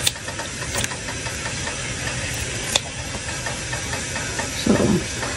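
A few sharp snips of kitchen scissors cutting through raw chicken leg meat, over a steady hissing hum that runs throughout and is the loudest thing heard.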